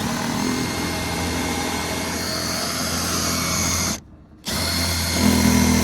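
Power drill running in two long runs, broken by a short stop about four seconds in, with the second run a little louder. It is drilling holes to mount the bumper.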